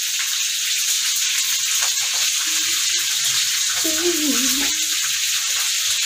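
Food frying in hot oil in a pan, with a steady sizzle that has no pause.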